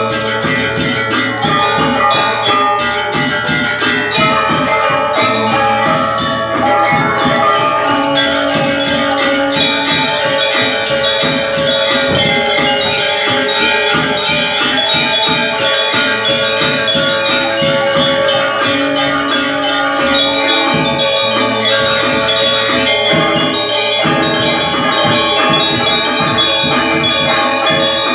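Live ensemble music: ringing, bell-like metallic tones over fast, steady percussion.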